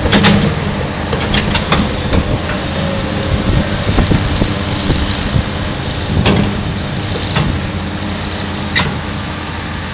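Komatsu PC290LC-10 excavator's diesel engine running steadily, with a few sharp metallic clanks.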